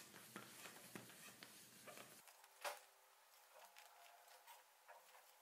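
Near silence with faint ticks and one sharper click about halfway through, from a hand ball pump being worked slowly to inflate a volleyball through its needle.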